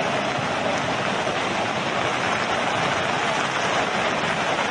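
Steady rushing of a river in flood: fast, muddy floodwater churning past.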